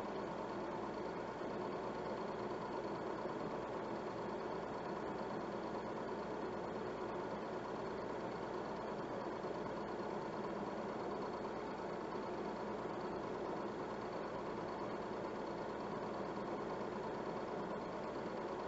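Steady mechanical whir of a film projector running.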